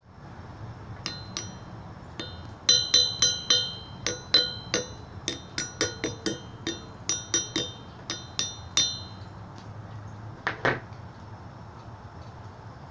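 A small 3D-printed steel object tapped about two dozen times in quick, uneven runs, each tap ringing with the same high metallic note. A duller double knock follows near the end.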